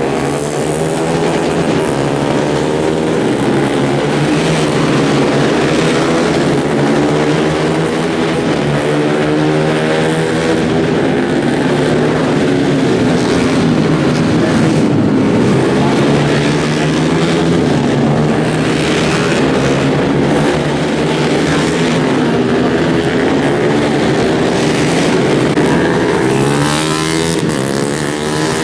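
Several 150cc underbone race motorcycles running hard on a circuit, their engine notes overlapping, each rising and falling in pitch as the bikes rev, shift gears and pass.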